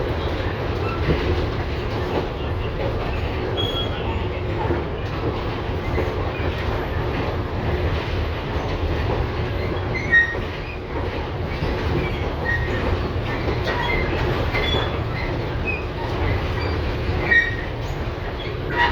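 LVS-2009 tram running along the track: a steady low rumble of wheels on rail, with scattered short high squeaks of the wheels and clicks over the rails. Two sharper knocks come about ten and seventeen seconds in.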